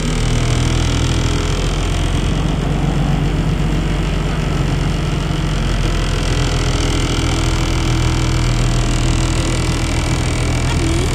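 Bumboat's diesel engine running steadily under way, a low even drone with a steady hiss of water over it.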